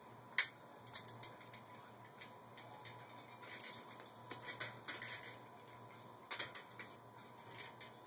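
Scattered light metal clicks and ticks, irregular and faint, from the lowrider bicycle's wheel and parts being handled during a teardown.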